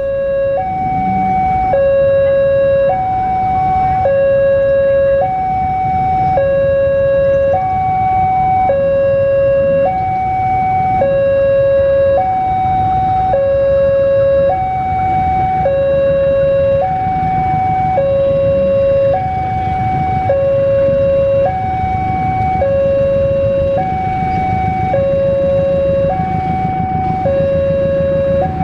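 Two-tone hi-lo siren, alternating steadily between a higher and a lower pitch about once a second, over a low rumble.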